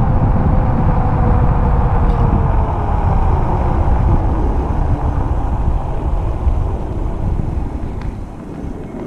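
Fat-tyre electric bike riding on pavement: wind buffets the microphone, and a faint whine from the bike slowly falls in pitch as it slows down. The whole sound grows quieter near the end.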